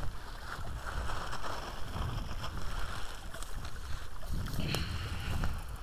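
Footsteps and rustling through dry forest undergrowth, with scattered twig snaps and the low rumble of wind and handling on a body-worn camera's microphone, strongest past the middle.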